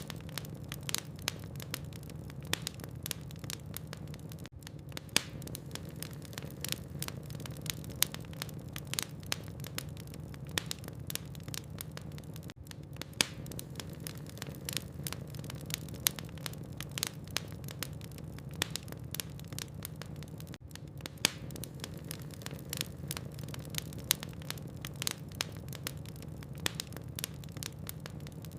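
Burning logs in a fireplace crackling, with many irregular sharp pops and snaps over a steady low rumble.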